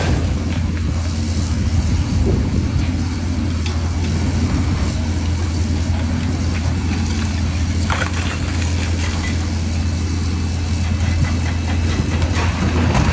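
Excavator diesel engine running steadily with a deep, constant hum, with a brief knock about two-thirds of the way through.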